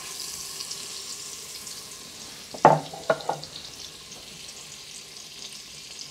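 Butter and olive oil sizzling in the stainless steel inner pot of an Instant Pot as the butter melts and foams: a steady crackling hiss. Three brief louder sounds come close together about halfway through.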